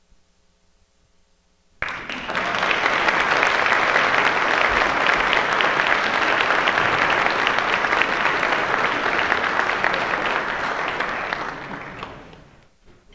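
Audience applauding after a band piece ends: a short near-silent pause, then applause breaks out suddenly about two seconds in and dies away near the end.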